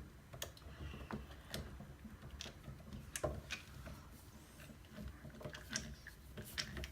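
Faint, irregular clicks and scrapes of a screwdriver working a screw, about eight sharp ticks spread unevenly.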